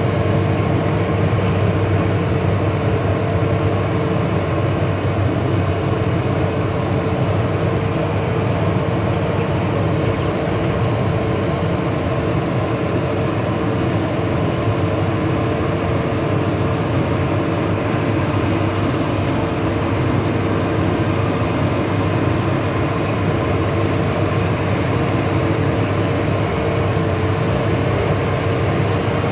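Vehicle engine and tyre noise heard from inside the cab while driving on a snow-covered road: a steady low rumble with a constant whine over it.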